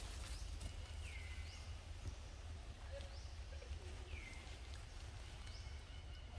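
A bird calling over and over, one short call about every second and a half, each sweeping up high then gliding down. A steady low rumble runs underneath.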